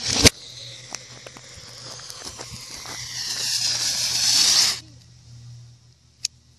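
Fireworks played backwards: a reversed bang swells up and cuts off sharply at the very start, then a fizzing, crackling firework spinner's shower of sparks grows louder for about four seconds and stops abruptly. A single sharp crack sounds near the end.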